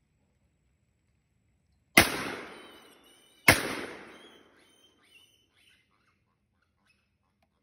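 Two shotgun shots about a second and a half apart, each dying away over about a second.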